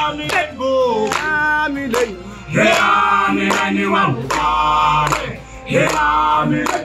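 Group of men singing and chanting together without instruments, in short phrases broken by sharp percussive hits. The singing dips briefly twice.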